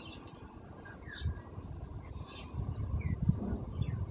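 Outdoor ambience of scattered short bird chirps, several brief separate calls, over a low, irregular rumble that grows louder from about halfway in.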